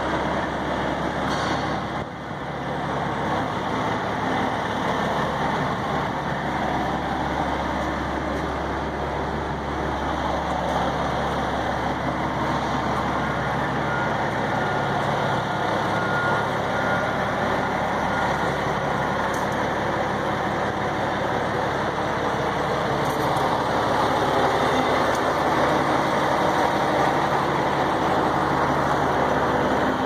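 Steady low running of a heavy diesel truck engine at idle, mixed with the even noise of road traffic.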